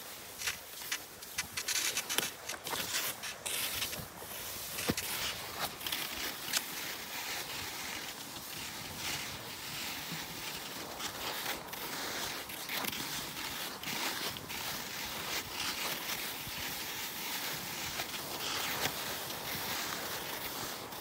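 Cross-country skis sliding on packed snow: an even hiss with irregular crunches and clicks, thickest in the first seven seconds or so, then steadier.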